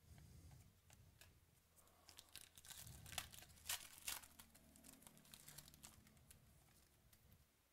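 Foil wrapper of a trading-card pack crinkling and tearing as it is opened, faint, with a run of sharp crackles about three to four seconds in.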